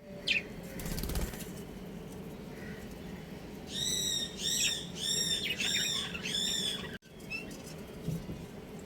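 Budgerigars calling: a short chirp at the start, a brief flutter of wings about a second in, then a run of about five repeated arching chirps, each about half a second long. The calls cut off abruptly about seven seconds in.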